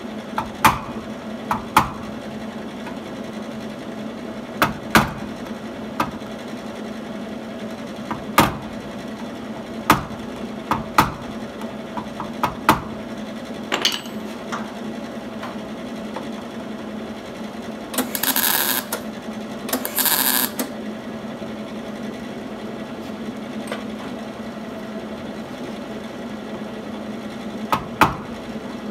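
Two short welding tacks on auto-body sheet metal, each a noisy burst under a second long, about two seconds apart and well into the stretch. Scattered sharp taps and clinks of metal tools come before them, over a steady low hum.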